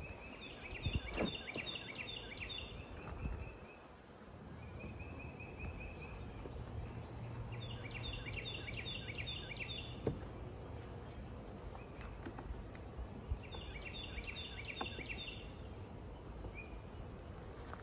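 A small bird singing outdoors: three phrases of about six quick high chirps each, repeating about every six seconds, with shorter single notes in between, over a low steady background rumble.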